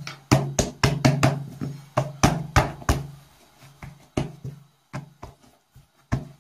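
Hands slapping and patting a ball of soft flour-and-milk dough flat on a countertop: a run of sharp knocks, about three a second, that thin out and grow quieter after about three seconds.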